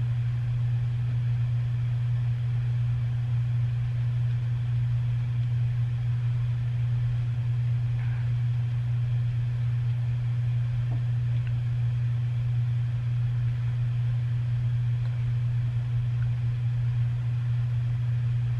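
A steady low hum that does not change in pitch or level, with no speech over it.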